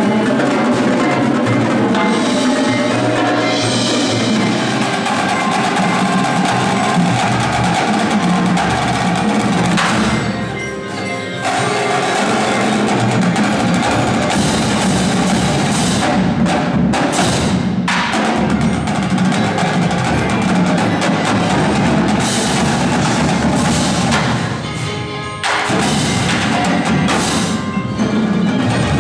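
Indoor percussion ensemble performing: snare drums, tenor drums and bass drums playing together with marimbas and other mallet keyboards. The playing thins out briefly twice, about ten and twenty-four seconds in.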